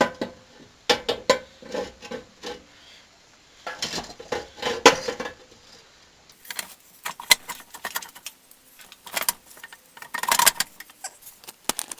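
Irregular metallic clinks and knocks of a snow blower's fan impeller and its steel parts being worked onto the keyed shaft by hand.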